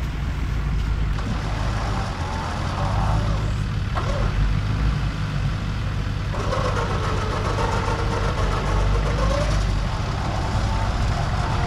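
Four-wheel-drive engines running during a strap recovery of a vehicle bogged in a mud hole, a Nissan Patrol Y62 pulling it out. The engine note swells and dips twice.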